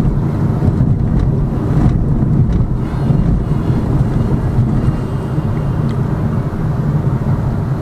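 A Lada Vesta Cross being driven: a steady rumble of engine and road noise from its winter friction tyres, with no change in pace.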